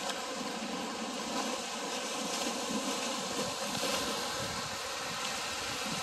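Small waves washing on a sandy beach and wind buffeting the microphone, with a faint steady drone under it.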